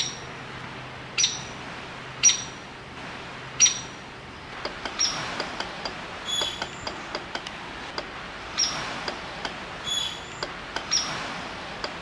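Downy woodpecker pecking at a dead branch stub: a string of short, sharp, high-pitched taps at irregular intervals, about one every second or so, with quicker faint ticks in the middle.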